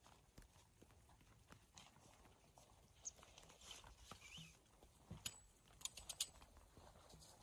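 Near silence with faint, scattered footsteps on snow-dusted grass, and a quick cluster of sharp clicks about five to six seconds in.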